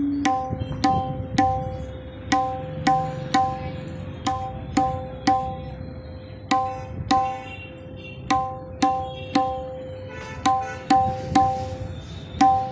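Tabla being played: sharp, ringing strokes, about two a second in an uneven pattern. A steady drone tone holds underneath.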